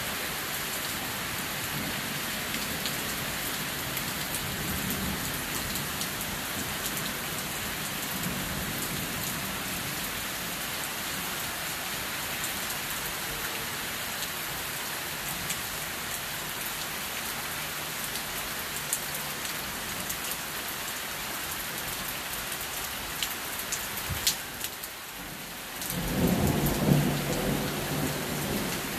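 Heavy rain falling steadily in a thunderstorm, with a low rumble of thunder coming in near the end.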